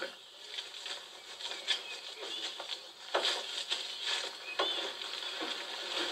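Field sounds of work in a cleared patch of rainforest: irregular rustling, clicks and taps, with a few short high chirps scattered through.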